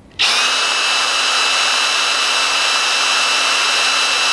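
Cordless drill with a twist bit running free at full speed: a steady high whine that starts abruptly just after the beginning.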